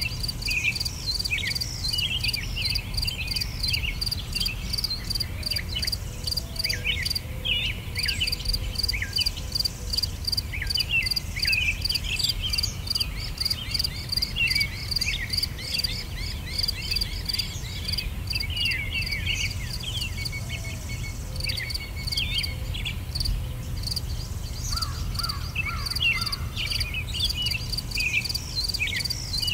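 Crickets chirping steadily in a rapid even pulse, with small birds chirping short, falling notes over them and a low rumble underneath. The pulsing drops out briefly twice.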